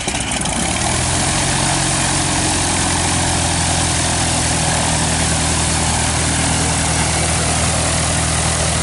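Piper PA-28 single-engine light airplane taxiing at low power, its piston engine and propeller giving a steady, even drone.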